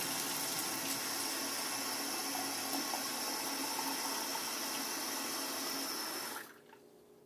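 Kitchen faucet running warm water into a small glass pitcher, a steady rush of water, shut off about six seconds in.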